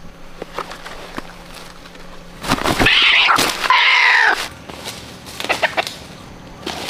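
A chicken gives one loud call about two seconds long, in two parts, a little over two seconds in. Footsteps crunch on dry leaf litter before and after it.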